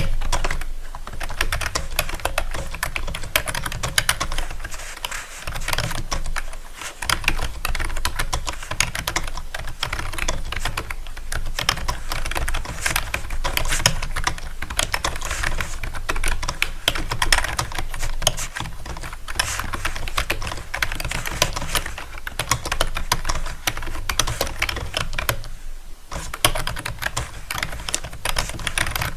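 Continuous fast typing on a keyboard: a dense run of key clicks with a few short pauses.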